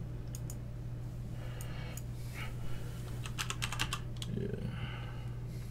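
Scattered key clicks of a computer keyboard being typed on in short runs, over a steady low electrical hum.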